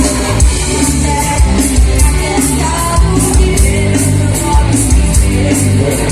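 Live band playing a pop-rock song between sung lines, with a steady beat over bass and melody.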